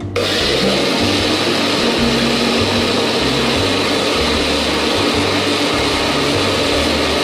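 Countertop blender switching on at the start and running steadily at speed, churning a thick batter of fresh corn kernels with eggs, milk, cream and melted butter while a wooden spoon pushes the mix down into the jar.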